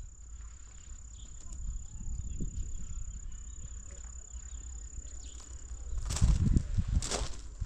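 A steady high-pitched insect trill over a low rumble. About six seconds in, the trill stops and loud crunching and rustling noises take over.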